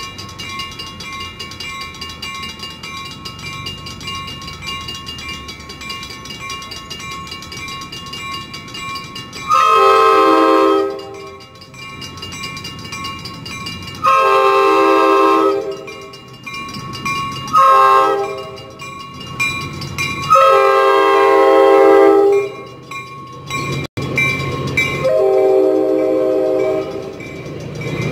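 Grade-crossing bells ringing steadily while an approaching Coaster commuter train sounds its multi-chime horn for the crossing in five blasts, the third one short. The train's rumble rises near the end as it reaches the crossing.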